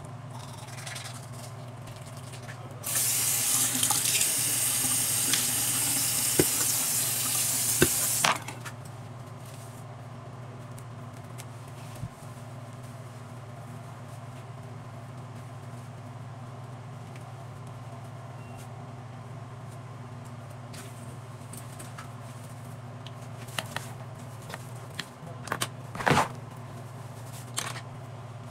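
Water running from a tap into a sink for about five seconds, starting about three seconds in and shut off sharply, while she brushes her teeth. A steady low hum runs underneath throughout, and a few brief knocks and clicks come near the end.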